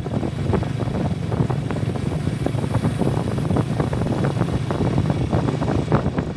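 Honda Tiger motorcycle's single-cylinder four-stroke engine running while under way, with wind buffeting the microphone.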